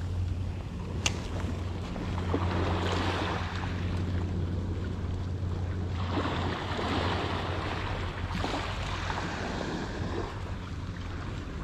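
Small waves washing in and draining back over a sand-and-pebble beach, in repeated swells, with wind on the microphone making a steady low rumble. A single sharp click about a second in.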